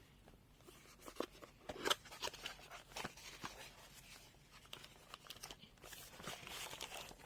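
A small cardboard box being opened and its packaging handled: faint rustling with scattered light clicks and taps, the sharpest about two seconds in.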